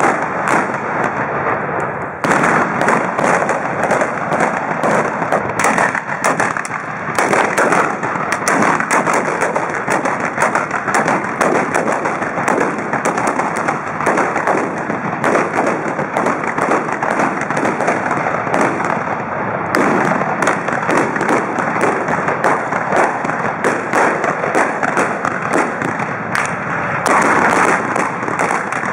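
Trabucs, Catalan blunderbusses, firing black-powder blanks in a continuous rolling fusillade, many shots a second running together into a crackle, with a few short lulls.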